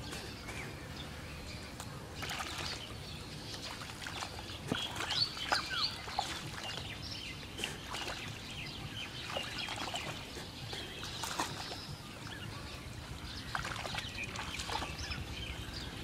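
Several birds chirping and calling in short, scattered notes, some of them quick falling whistles, over a steady background hush. Faint sloshing of legs wading through shallow, weed-covered water is heard beneath.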